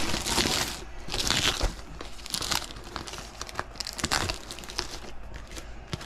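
Aluminium foil duct tape being pulled, torn and handled, crinkling and ripping in several short bursts. The loudest bursts come in the first second and a half.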